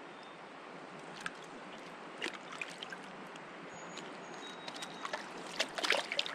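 Stream water running steadily, with scattered small splashes and ticks that bunch together near the end.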